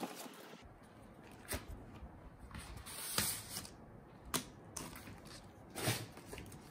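A silicone keyboard protector being handled and laid over a MacBook Pro keyboard: scattered soft clicks and taps, with a short rustle about three seconds in.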